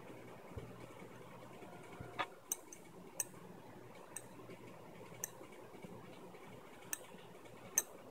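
Steel rolling pin rolled back and forth over potato dough on a marble board, giving faint, sharp, irregular clicks about once a second from about two seconds in, over a low steady hum.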